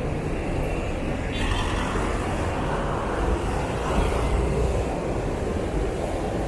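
City road traffic: vehicles passing on a busy avenue, a steady rumble of engines and tyres, with one vehicle passing closer and louder between about one and three seconds in.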